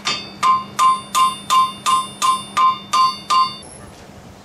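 Blacksmith's hammer striking hot iron on an anvil: about ten sharp, ringing blows at an even pace of nearly three a second, ending abruptly about three and a half seconds in.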